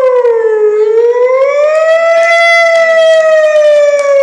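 A man's voice through a microphone and PA imitating a vehicle: one long unbroken wail that slowly rises and falls in pitch, like a siren.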